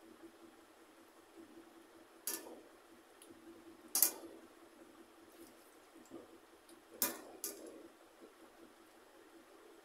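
Eating by hand from stainless steel plates: four sharp metallic clinks on the plates, the loudest about four seconds in, two close together near seven seconds, over a faint steady hum.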